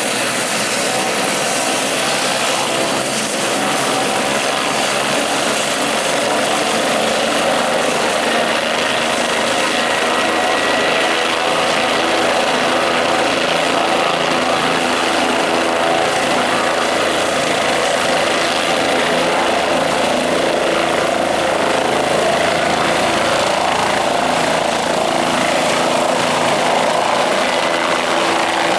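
Bell 407 helicopter's turbine engine and main rotor running steadily. A high turbine whine rises in pitch through the second half as it powers up and lifts off into a hover.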